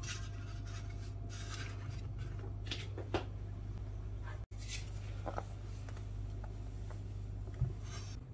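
Quiet room tone with a steady low hum, and a few faint rustles and light clicks of small handling. The sound drops out completely for an instant about halfway through.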